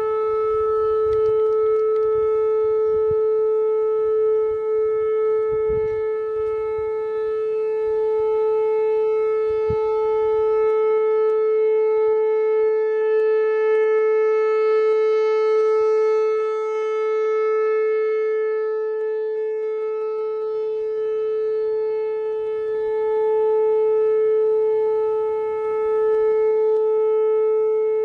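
Whelen Vortex R4 outdoor warning siren sounding its alert signal: one steady, unbroken tone that swells and fades in loudness as the rotating head sweeps around.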